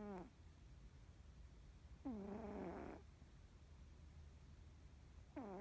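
Norwegian Forest Cat snoring in deep sleep: soft, pitched snores about a second long, each dropping in pitch and then holding. One is just ending at the start, another comes about two seconds in, and a third begins near the end.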